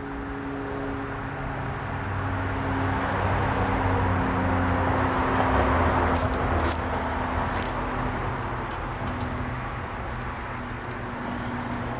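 A motor vehicle passing, growing louder to a peak about halfway through and then fading, over a steady low hum. A few light clicks come near the middle.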